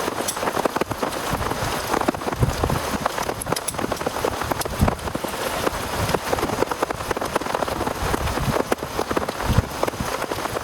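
Heavy rain falling steadily, a dense patter of drops hitting a surface.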